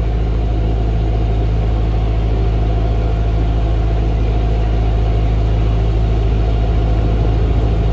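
Narrowboat engine running steadily while the boat cruises under way, a constant low drone with no change in pace.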